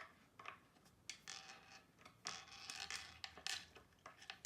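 Faint scrapes, creaks and light clicks of engineered-wood flat-pack furniture parts and fittings being handled and worked together during assembly.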